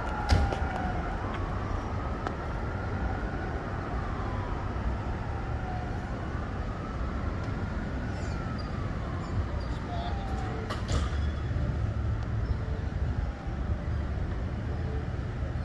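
Distant emergency-vehicle siren on a slow wail, its pitch rising and falling over a few seconds at a time and fading, over a steady low rumble of street noise. A couple of sharp knocks come near the start and about two-thirds of the way through.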